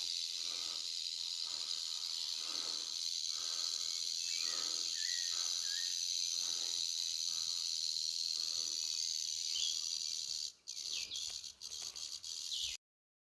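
Rattlesnake rattling: a steady, high, hissing buzz, broken by a couple of brief gaps near the end before it cuts off.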